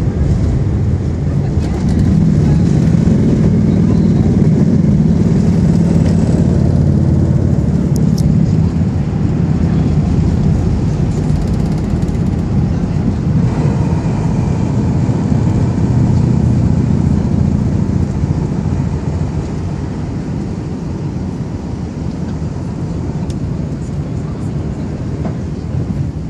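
Cabin noise of a four-engined Airbus A380 on its takeoff roll: a loud, steady low rumble of the engines at takeoff power and the wheels running on the runway, easing off gradually in the second half as the airliner lifts off and climbs.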